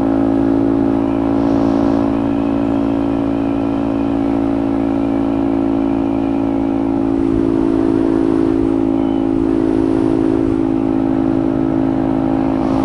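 Motorcycle engine held at a steady cruising speed: an even, unchanging drone with wind rushing past the helmet-mounted microphone.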